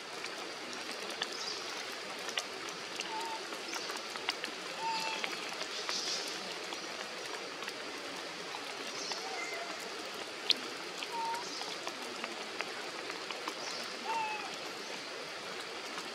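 Steady hiss of rain with scattered drops ticking, and a short, high chirping call now and then, about five times.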